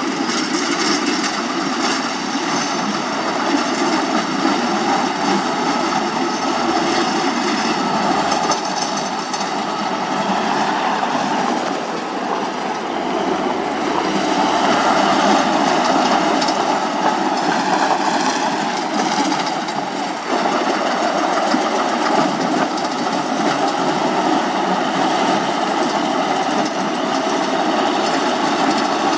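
Heavy road-construction machinery running, a steady engine drone with clattering.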